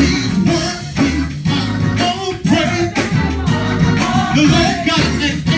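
Gospel choir and lead singer performing an upbeat song over band accompaniment, with steady bass notes and a regular drum beat.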